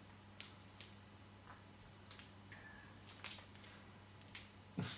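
Quiet room with a low steady hum and a few faint, scattered crackles from a plastic snack wrapper being handled.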